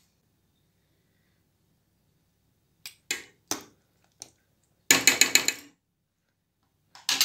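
A metal spoon clinking against a stainless steel pot: a few single clinks starting about three seconds in, a quick run of six or seven taps about five seconds in, and two more near the end.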